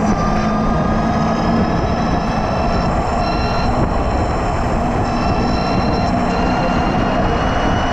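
Electric motorcycle's 72 V 5000 W QS hub motor whining under way, its whine climbing slowly in pitch as it speeds up, over a heavy rush of wind and road noise.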